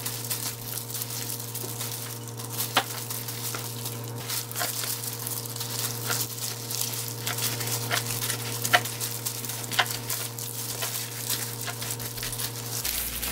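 Plastic-gloved hands smearing thick kimchi seasoning paste onto salted napa cabbage leaves: wet squishing and crackling of the gloves and the plastic wrap, with many small scattered clicks. A steady low hum runs underneath and stops just before the end.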